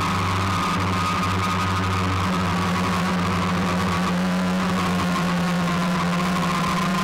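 Motors and propellers of a radio-controlled camera drone, heard from its own onboard camera: a steady hum with a high whine over it that sags a little in pitch midway and comes back up.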